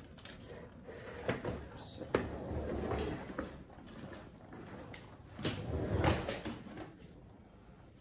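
Wheeled suitcase being rolled across a tiled floor, with footsteps and a few knocks and clicks from the case and its handle; the loudest rolling stretch comes a little past halfway.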